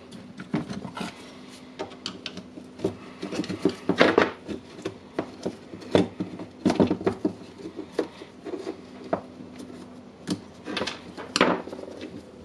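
Irregular clicks, knocks and light rattles of a disassembled DeWalt DCD780 cordless drill being handled, its armature being pulled out of the motor housing. A faint steady hum runs underneath.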